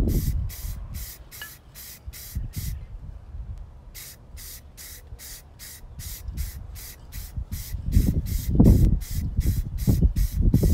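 Aerosol spray paint can (Krylon satin black paint and primer, fitted with a trigger grip) hissing out in rapid short puffs, about three a second, as a light first coat is dusted on. There is a brief pause about three seconds in, and a low rumble swells up near the end.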